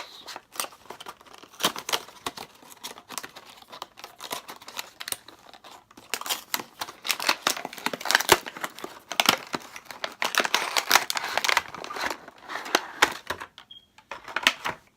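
Packaging of a PS4 USB charging cable being handled and torn open: crinkling, tearing and clicking, busiest in the middle stretch and easing off near the end.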